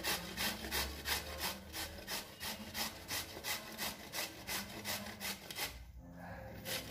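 Peeled bottle gourd being grated by hand on a round stainless-steel flat grater, a rhythmic scraping at about three strokes a second. The strokes stop briefly near the end, then start again.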